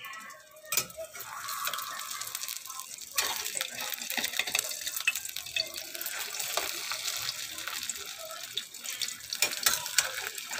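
Beaten egg frying in hot oil in an aluminium wok: a steady crackling sizzle that gets louder about three seconds in, as the egg is folded over with a metal spatula.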